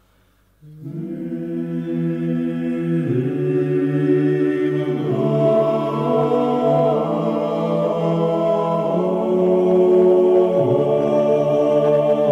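Vocal chanting in long held notes that shift pitch every couple of seconds, starting about a second in after near silence.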